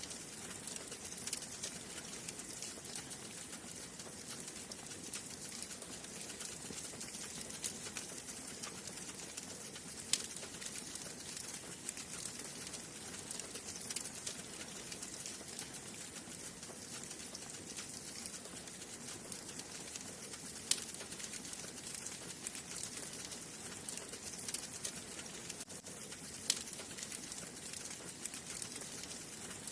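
Wood fire burning in a fireplace: a steady hiss with constant small crackles and a few sharper pops, the loudest about 21 seconds in.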